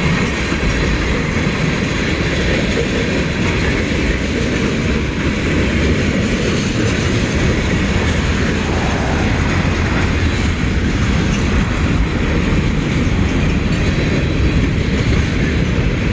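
Freight train cars rolling past close by, a steady rumble with wheels clacking over the rail joints, as the train slows toward a stop.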